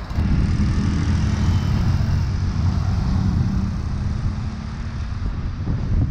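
Wind rushing over the microphone while riding a bicycle, a steady low rumble. A vehicle engine hums underneath through the first half, then fades.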